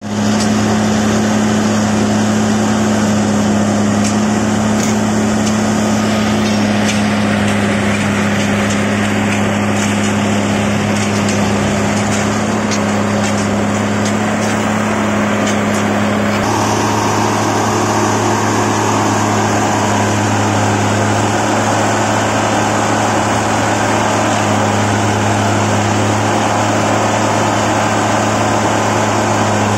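Plasser & Theurer Unimat 08-475 points-and-crossings tamping machine running: a loud, steady engine-and-hydraulics drone with two low hum tones. The sound shifts about halfway through, when the higher hum drops away and a hiss grows.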